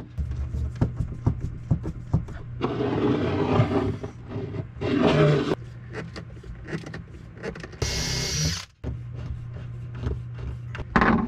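Knocks and clicks from a wooden panel being positioned and fastened, with short runs of a small power driver whirring, about three seconds in and again near five seconds. Near eight seconds a short sharp hiss-like burst cuts off suddenly.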